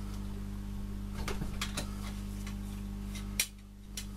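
A few light metallic clicks and ticks of pliers folding a tab washer on the A-series engine block, over a steady electrical hum. A sharper click comes a little after three seconds, and the hum drops out briefly after it.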